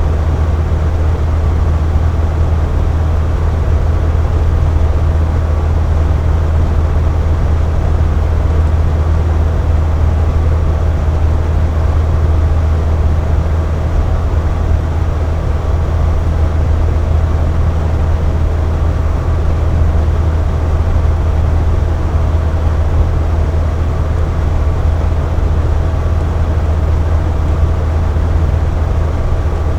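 Air conditioner running steadily: a strong, constant low hum under an even rush of fan air, with a faint thin whine above it.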